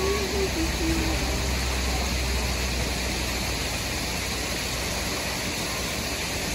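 Steady rushing noise, with a low rumble through the first half that fades out.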